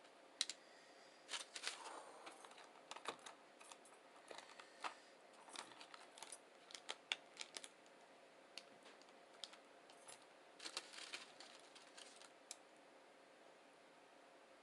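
Someone eating a burrito: scattered short, irregular clicks of chewing and mouth sounds over faint room hiss.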